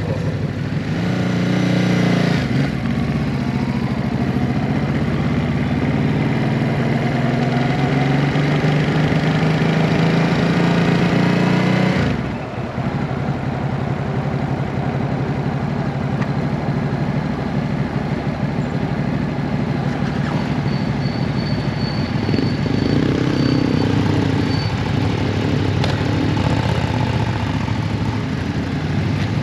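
Ducati Hypermotard 939's L-twin engine running under throttle, its revs climbing steadily for about ten seconds. About twelve seconds in the sound cuts off sharply as the throttle closes, and the engine then runs on at lower revs.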